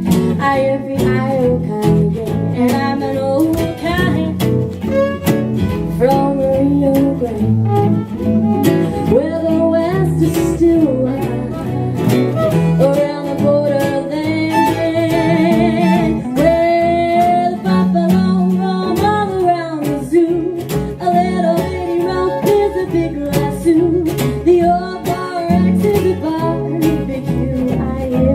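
Western swing band playing an instrumental passage: fiddles and lead guitar carrying the melody over bass and strummed rhythm guitar, with a steady swing beat.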